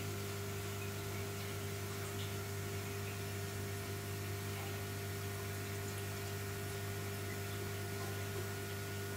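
A steady hum made of a few fixed tones, with an even hiss beneath it, unchanging throughout.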